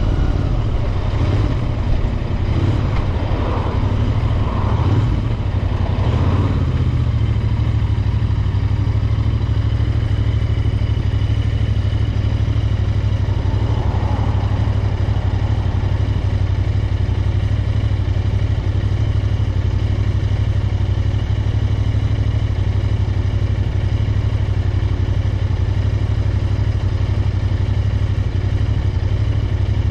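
Royal Enfield Interceptor 650's parallel-twin engine running steadily while the motorcycle is ridden. For the first several seconds some uneven, shifting noise rides over the engine, then the sound settles into an even, unchanging run.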